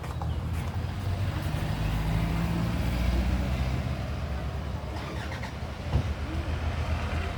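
A motor engine running with a low, steady hum, its pitch rising slightly between one and three seconds in, over a steady rushing noise. There is a brief knock near the end.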